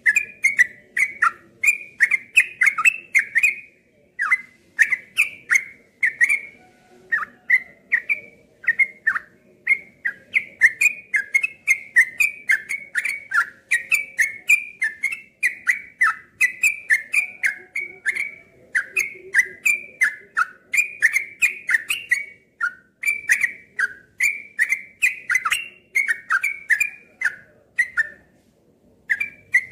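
Yellow-vented bulbul (trucuk) singing in rapid, continuous runs of bubbly whistled notes, a run of song in the 'ropel' style, with short breaks about four seconds in and near the end.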